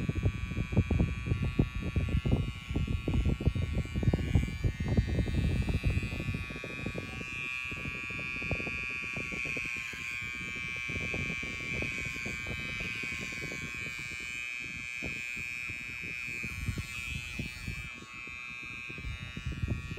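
Electric hair clippers buzzing steadily while cutting an undercut at the back of the head, the pitch dipping briefly about halfway through. A gusty low rumble runs under the buzz for the first several seconds.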